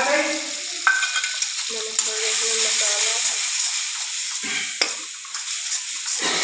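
Spice masala sizzling as it fries in hot oil in a kadhai, stirred with a metal ladle that scrapes and knocks against the pan a few times.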